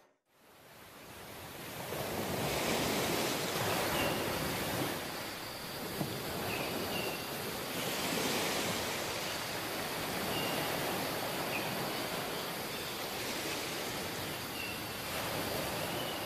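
Steady rushing noise of sea surf, fading in over the first two seconds, with a few faint short high chirps every couple of seconds.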